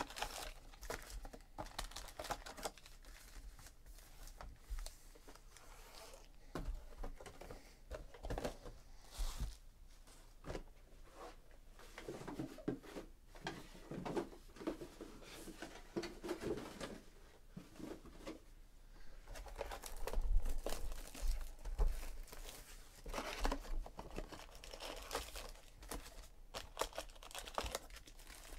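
Wrapped Panini Classics football card packs crinkling and rustling as they are pulled out of a cardboard hobby box and laid down, with irregular small clicks and taps.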